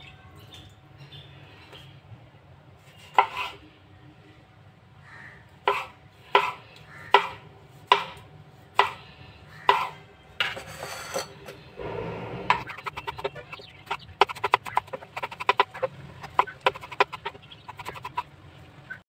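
Kitchen knife cutting tomatoes on a wooden cutting board. Separate knocks of the blade hitting the board come about every second, then a quick run of many light cuts near the end.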